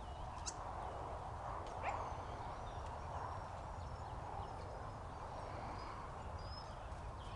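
Dogs moving about, sniffing and scrabbling around a tractor's wheels, with short high chirps and a low rumble in the background.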